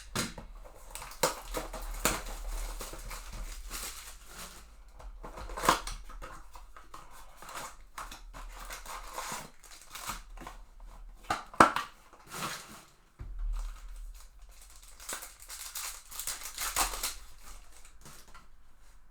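Plastic wrapping and card-pack wrappers crinkling and tearing, with cardboard rustles and clicks, as a trading-card blaster box is opened and its packs ripped open. A sharp snap stands out about eleven and a half seconds in.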